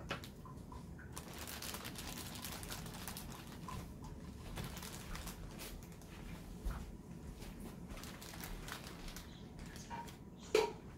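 Food being handled during preparation: soft rustling and squishing with scattered light taps, and one sharp clink of a utensil against a dish near the end.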